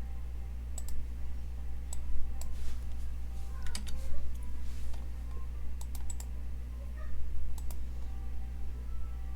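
Scattered, uneven clicks of a computer mouse and keyboard as a map website is worked, over a steady low hum.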